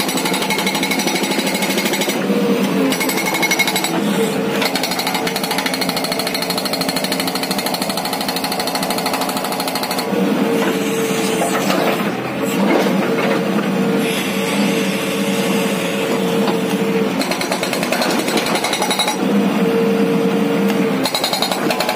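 Hydraulic rock breaker on a JCB 3DX backhoe loader hammering rock with fast, continuous blows.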